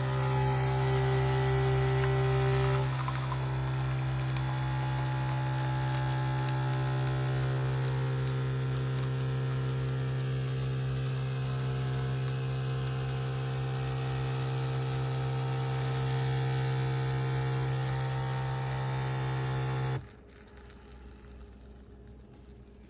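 Breville Nespresso Essenza Mini's vibration pump buzzing steadily as it pushes water through a capsule to brew coffee. Its tone shifts slightly about three seconds in, and it cuts off suddenly near the end.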